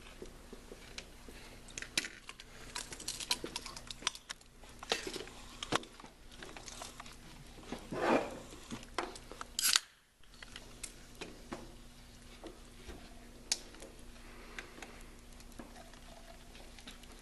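Scattered small clicks, taps and rustles of plates and plastic cups being handled at a table. A louder brief noise comes about eight seconds in and a sharp one just before ten seconds.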